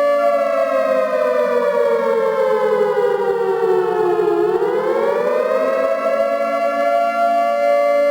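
Civil defense siren sounding loudly: a steady tone holds throughout while a second tone falls in pitch for about four seconds, then rises back up and levels off.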